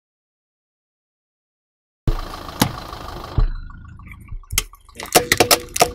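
Starting about two seconds in, a car's engine runs as its tyre rolls over gravel onto a small plastic toy monster truck. Near the end comes a quick run of sharp cracks and snaps as the plastic toy breaks under the tyre.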